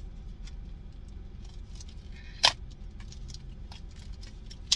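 Crinkling and tearing of Pokémon booster-pack blister packaging and foil wrappers being opened by hand: a run of small crackles, with a sharp loud rip about halfway through and another at the very end, over a low steady hum inside the car.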